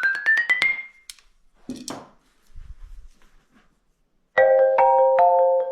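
Xylophone playing a fast rising run of struck notes that ends and rings out about a second in. A few faint knocks follow, then from about four seconds in a ringtone-like melody of repeated mallet notes, about two and a half strikes a second.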